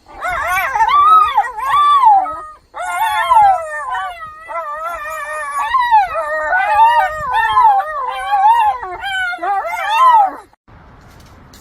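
A dog howling in long, wavering calls that slide up and down in pitch, with a short break about two and a half seconds in, stopping about a second before the end.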